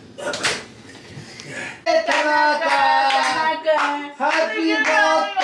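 About two seconds in, a woman starts singing a song in long held notes, with a few handclaps among the phrases.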